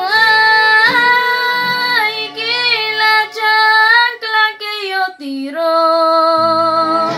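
A young girl singing a ranchera, holding long notes with vibrato, with a brief dip to a lower note about five seconds in before another held note.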